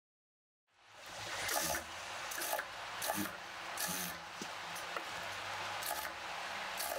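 Chiffon fabric rustling as hands handle and shift it at a sewing machine, with scattered small clicks and knocks and a faint low hum. The sound starts about a second in, after complete silence.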